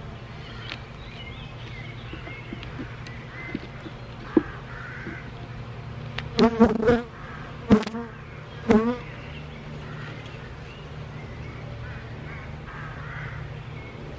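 Honeybee colony in an open hive humming steadily, the buzz of many bees around the frames being lifted out. A few louder short sounds stand out about six to nine seconds in.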